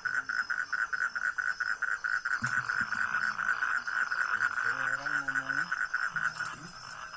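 Frogs calling in a rapid pulsing chorus, about seven pulses a second, that dies away near the end. Faint voices are heard in the background.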